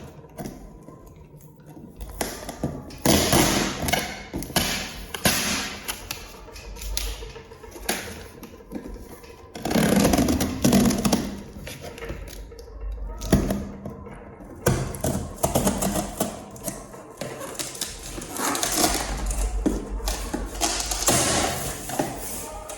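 A cardboard box and its packaging being opened and handled: irregular rustling and scraping, broken by occasional thumps and knocks.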